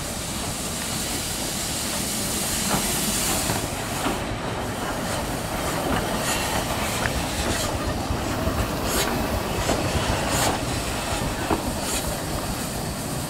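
Beyer Peacock 2-4-0 tank engine No.4 Loch running slowly past: a steady hiss of steam, strongest in the first few seconds, with the wheels clicking over the rail joints and a few sharp clicks later on.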